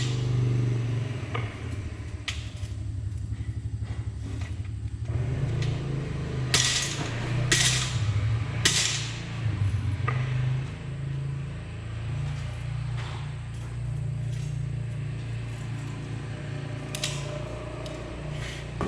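A motor running steadily with a low, pulsing drone, broken by short hissing bursts: three in a row about a third of the way in and a fainter one near the end.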